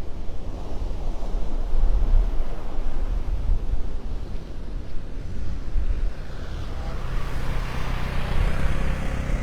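Wind rumbling on the microphone, then from about seven seconds in a motor vehicle's engine drawing near and growing louder.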